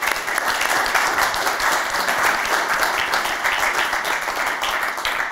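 Audience applauding: many people clapping steadily, fading out near the end.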